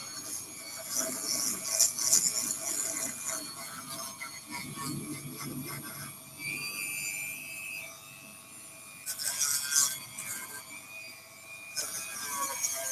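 Dremel rotary tool running with a sanding bit held against a cork float, its motor whine steady under a rasp of sanding that comes in bursts as the bit is pressed to the cork.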